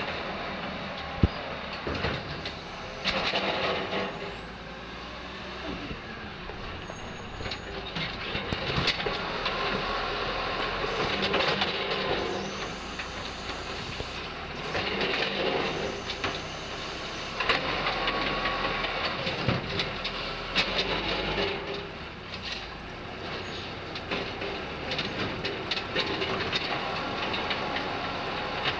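Automated side-loader garbage truck at work: the diesel engine runs steadily while the hydraulic arm grabs, lifts and empties wheeled trash carts into the hopper, in repeated stretches of clanking and clatter. Sharp bangs of carts and metal come now and then, the loudest about a second in.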